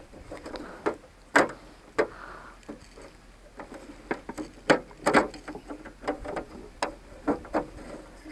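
Irregular clicks and knocks of hard plastic parts being handled and fitted together on a hand-push seed planter.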